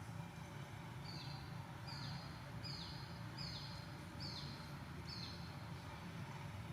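A bird calling six times in a steady series, each a short high note that drops away at its end, about one every three quarters of a second, over a steady low hum.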